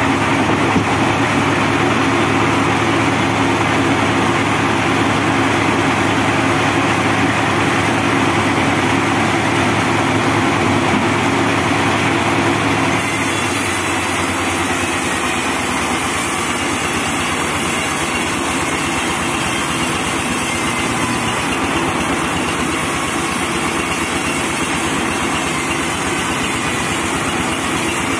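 Homemade band sawmill running steadily with its diesel drive engine, a continuous loud machine drone and blade noise; about halfway through the sound shifts and stays at its new character.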